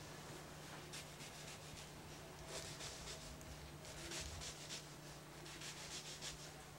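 Faint scraping as a mango half is scored into cubes and handled on a plastic cutting board, in several short bouts, over a low steady hum.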